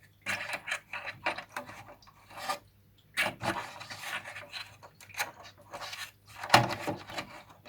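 Plastic parts of an aquarium LED light hood being handled: irregular rubbing and scraping with light knocks, the loudest knock about six and a half seconds in.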